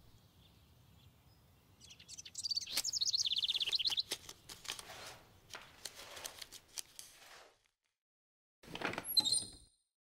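Cartoon sound effects: a rapid, high twittering trill of bird-like chirps, followed by a string of light clicks and taps, and a short burst of high chirps near the end.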